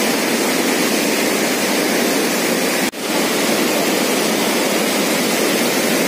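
Steady, loud rush of floodwater pouring through a dam gate and churning in the spillway below, with a momentary dropout about three seconds in.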